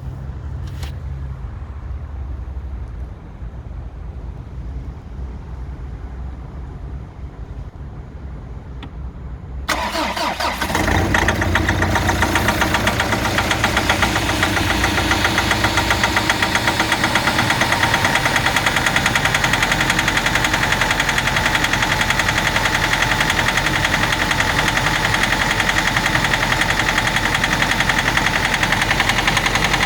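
Mitsubishi 4D56U turbodiesel cold-started about ten seconds in, after a low hum, then idling steadily with a fast, even rhythmic knock. This cold-engine knock is the fault whose cause is being looked for.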